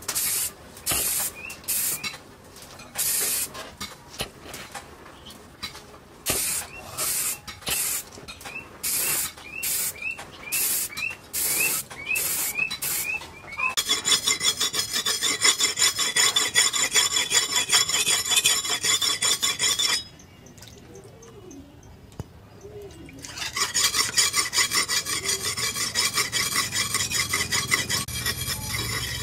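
An aerosol spray can sprayed in a series of short hissing bursts. Then a cleaver blade is stroked rapidly back and forth on a wet whetstone to sharpen its edge. This rasping scrape stops for about three seconds in the middle and then resumes.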